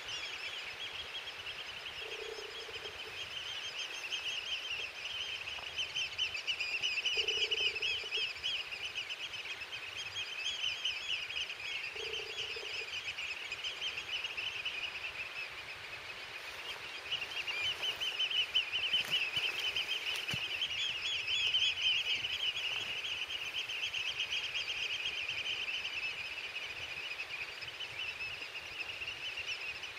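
A large number of birds calling together, a dense chatter of rapid high chirps that swells and fades. A short low note sounds about four times in the first half.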